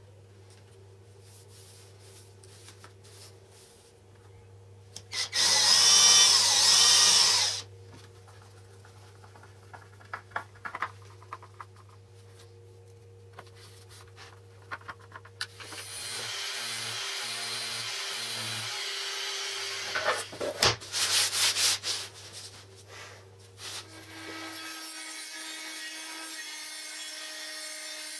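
Hand work on laminate boards and an aluminium rail: a loud rasping scrape lasting about two seconds, scattered clicks and taps, a steady rubbing, and a few more loud scrapes. Near the end a steady running sound with a faint whine sets in.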